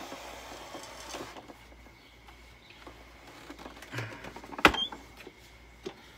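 Something being pried apart with a hand tool during demolition: scraping at first, then a dull knock and a sharp crack about two-thirds of the way in.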